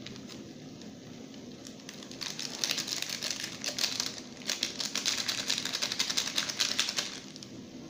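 Curry powder being shaken from a plastic sachet over a pot: a rapid crinkling, clicking rattle of the packet that starts about two seconds in and stops about seven seconds in.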